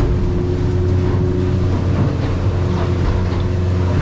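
Yamaha 115 VMAX outboard motor running steadily at low throttle, a constant low hum with a steady higher tone above it.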